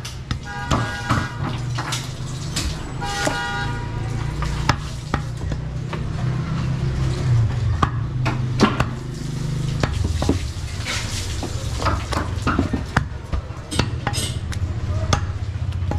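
A cleaver chopping goat meat on a wooden log chopping block, giving sharp knocks at irregular times. A vehicle horn honks twice in the first four seconds over a steady low rumble.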